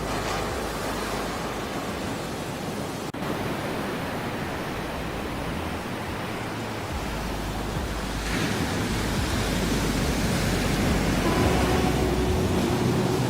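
Ocean surf: a steady rush of waves with a fresh swell of breaking water about eight seconds in, after which it grows louder. Soft held music notes come in near the end.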